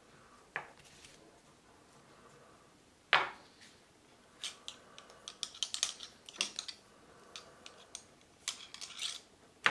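Cleaning rod with a cloth patch on its jag being run through a blued revolver barrel: a sharp knock about three seconds in, then a run of small metal clicks and scrapes as the rod rubs and taps against the gun.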